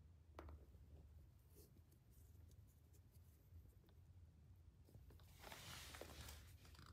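Near silence: a low room hum with a few faint clicks and, near the end, a soft scratchy rustle lasting about a second, like the small leather-trimmed bag being handled.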